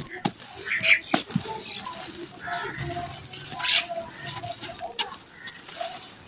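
Dry sand-cement chunks being crushed and crumbled, with a few sharp cracks and short gritty crunching bursts.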